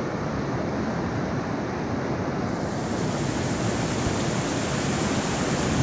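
Whitewater rapids of a high, fast-moving river rushing over rocks: a steady rush of water that brightens slightly about two and a half seconds in.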